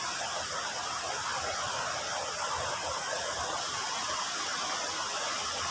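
Steady rushing of a waterfall, an even wash of noise.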